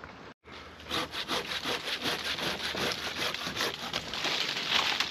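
Hand pruning saw cutting through a walnut branch. Quick, even back-and-forth strokes start about a second in and keep going.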